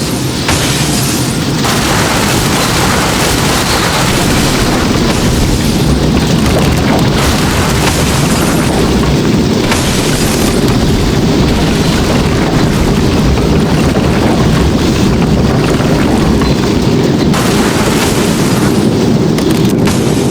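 A loud, steady low rumbling roar with a hiss over it, unbroken and without any separate hits.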